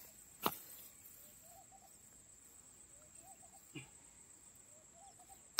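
Quiet rural ambience: a steady high insect drone, with a distant bird repeating a short low warbling call about every second and a half. A sharp click about half a second in.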